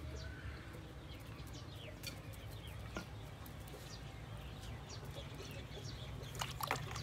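Birds chirping in short, scattered, downward-sliding calls over a steady low hum, with a single click about three seconds in.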